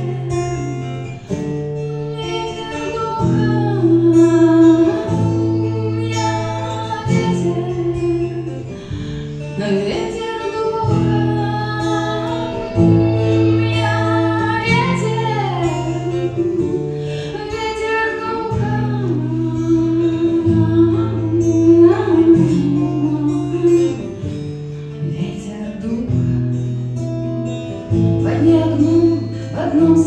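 A woman singing a Christian worship song while accompanying herself on a strummed acoustic guitar, with sustained low guitar notes changing every second or two under a gliding vocal line.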